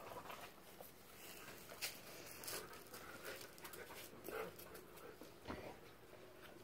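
Siberian husky making quiet panting and short whining sounds, with scattered scuffs and rustles as it moves against the man.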